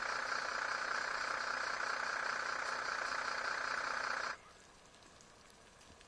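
An engine running steadily, cutting off abruptly a little over four seconds in and leaving only faint background noise.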